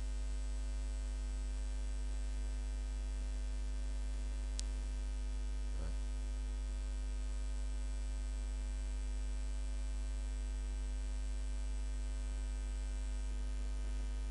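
Steady electrical mains hum with a ladder of overtones, and a faint high whine above it that stops near the end. A single sharp click comes about four and a half seconds in.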